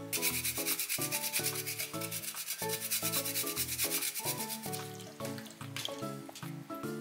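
Fresh ginger root rubbed quickly back and forth on a hand grater, an even run of rasping strokes that stops a little under five seconds in.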